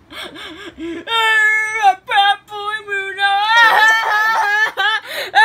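A high voice whimpering and wailing in long, wavering cries, played from a television and heard in a small room.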